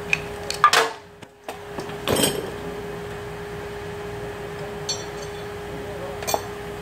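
Metal engine parts and hand tools clinking as they are handled and set down: a few sharp clinks, the loudest about a second in and again about two seconds in, over a steady hum.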